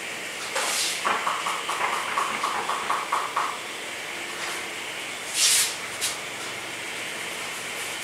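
Paintbrush mixing acrylic paint on a clear plastic palette tray in quick, rhythmic scrubbing strokes for a couple of seconds. There are two brief louder swishes, about half a second in and about five and a half seconds in, over a steady hiss.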